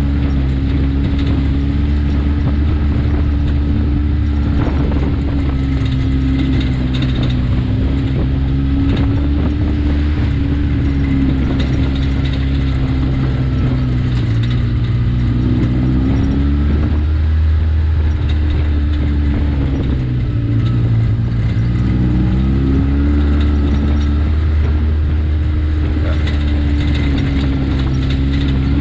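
Side-by-side UTV engine running steadily under way, its pitch dipping and rising a few times with the throttle.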